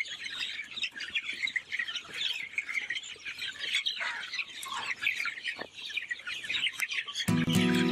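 A flock of farmed chickens in a poultry house, many birds chirping and squawking at once in a dense, continuous chatter. Music comes in near the end and grows louder than the birds.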